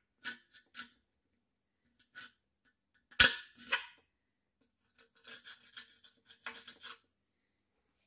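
A flat metal tool scraping rust from the steel tank of an old air compressor around a rusted pipe joint: a few short scratchy strokes, a sharp loud knock about three seconds in, then a run of quicker scrapes.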